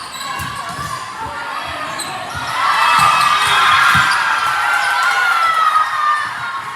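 Game sounds in a gym hall: a ball thumping on the court floor, with the noise in the hall growing louder about two and a half seconds in.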